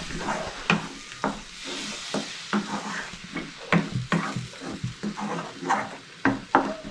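A spoon stirring and scraping a thick besan dal mixture in a steel kadai, with repeated scrapes about two a second over the sizzle of the mixture frying in the hot pan.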